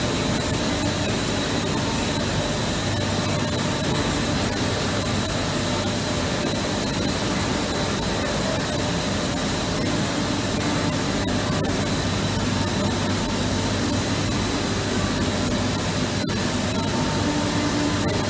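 Continuous bleaching range for textiles running: a steady, dense machinery noise of motors, rollers and steam, with a thin steady high tone over it and a few faint clicks.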